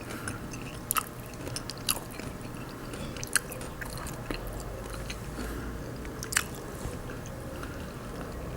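Close-miked chewing of food, with a few sharp wet mouth clicks spread through the chewing.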